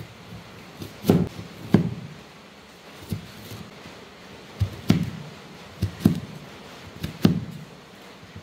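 Cleaver chopping carrot into cubes on a wooden cutting board: about ten sharp knocks of the blade on the board, irregularly spaced and often in close pairs.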